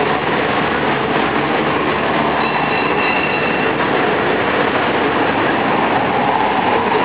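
Steady running noise heard from inside an open carriage of a rubber-tyred road tourist train moving along a street. A faint high tone sounds for about a second midway through.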